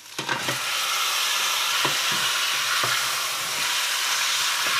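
Raw pork ribs and chicken wings going into hot oil and a frying garlic, coriander-root and pepper paste in a stainless steel pot. They start a steady sizzle that sets in suddenly just after the start: the meat is beginning to sear. A wooden spoon stirring the pieces gives a few light knocks against the pot.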